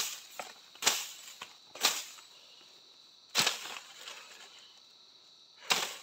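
Machete chopping through tall grass and brush: five sharp swishing cuts, about a second apart at first, then with longer gaps.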